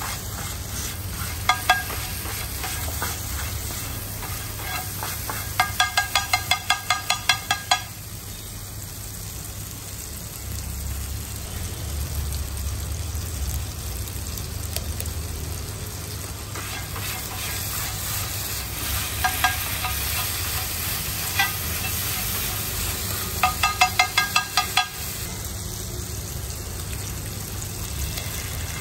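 Egg masala sizzling steadily on a large flat steel tawa. A steel scraper strikes the griddle in quick ringing metal clacks, about four or five a second, chopping and mixing the masala: one run about a quarter of the way in and another near the end, with a few single knocks between.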